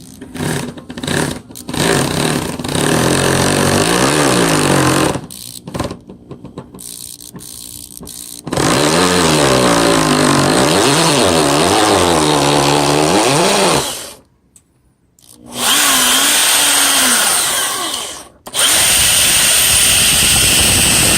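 Power drill pre-drilling pilot holes for screws: the motor runs in short bursts at first, then in several longer runs, its pitch rising and falling as the trigger and load change, with brief pauses between runs.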